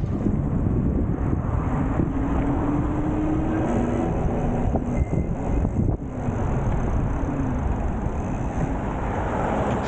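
Steady wind and road noise while riding an electric bike, with a faint low hum rising slightly in pitch about two to four seconds in.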